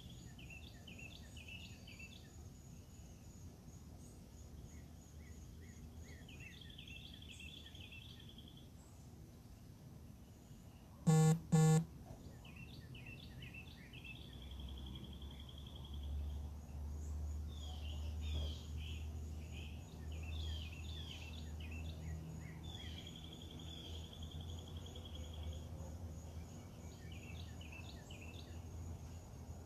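A songbird singing repeated phrases, each a steady trill followed by clusters of quick chirps, over a faint steady high insect buzz. Two short loud beeps come about eleven seconds in, and a low rumble rises in the second half.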